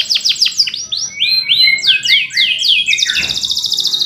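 Male domestic canary singing: quick series of high, down-slurred chirps in changing phrases, going into a fast, even rolling trill about three seconds in.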